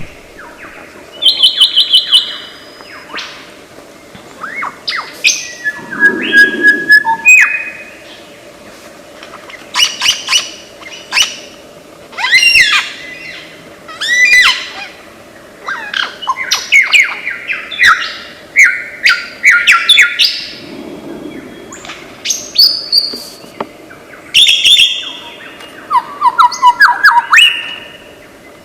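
Lyrebird singing a varied medley of mimicked calls: clear whistles, quick downward-sweeping notes and rapid runs of repeated notes, in bursts separated by short pauses.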